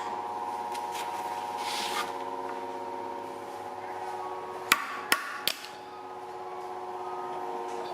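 A machine motor running with a steady, unchanging hum, and three sharp knocks in quick succession a little past the middle.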